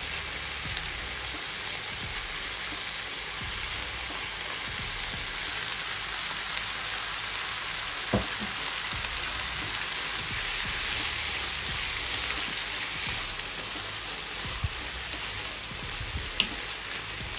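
Raw minced beef frying in a hot pan of peppers, onions and cherry tomatoes: a steady sizzle. A wooden spoon knocks against the pan once about eight seconds in, with a couple of lighter taps near the end.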